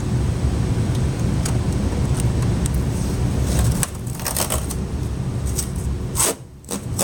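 A steady low rumble that stops about four seconds in, then crackling, clicks and light knocks as packing tape is pulled off the plastic casing of a new dehumidifier, with one sharper click near the end.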